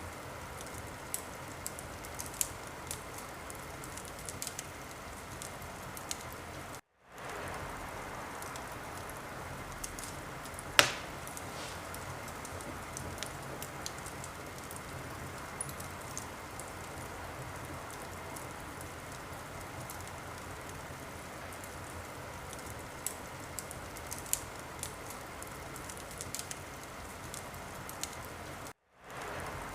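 Wood fire crackling in a fireplace: a steady hiss with many small scattered crackles and one loud pop about eleven seconds in. The sound cuts out completely for a moment twice, near seven seconds and near the end.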